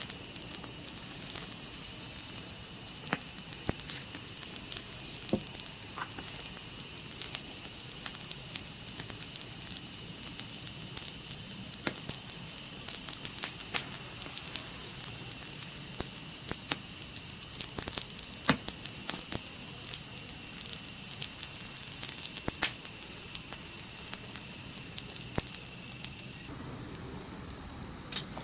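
Chorus of singing insects: a loud, steady, high-pitched trill with faint scattered clicks beneath. The trill cuts off suddenly about two seconds before the end.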